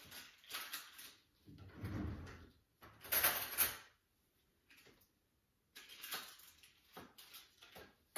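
Kitchen handling noises: a series of irregular knocks, scrapes and rustles as things are moved about at the counter, loudest about three seconds in.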